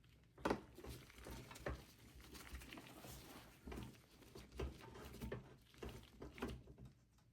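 A screwdriver driving in the small retaining screw of an M.2 NVMe SSD on a desktop PC motherboard, heard as faint, irregular clicks and scraping.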